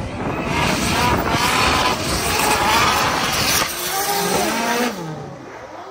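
Drift car at high revs with tyres screeching on the asphalt. The engine revs fall away about four seconds in, and the sound drops off.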